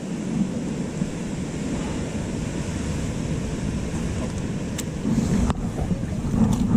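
Wind buffeting the microphone over the wash of sea waves against shore rocks, with two short clicks about five seconds in.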